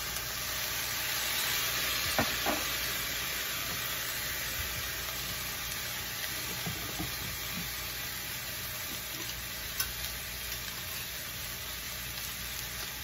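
Sooji noodles and vegetables sizzling in a hot wok, a steady hiss, with a few light clicks about two seconds in and again near ten seconds.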